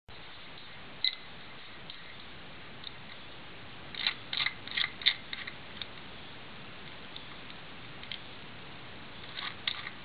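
Master Lock combination padlock clicking as it is worked by hand: a single sharp click about a second in, a quick run of clicks between about four and six seconds, and a few more near the end.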